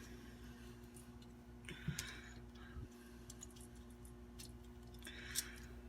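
Faint clicks and scrapes of hand tools and metal parts as a 1960 Rochester Model B single-barrel carburetor is taken apart, a few at a time, about two seconds in and again near the end, over a steady low hum.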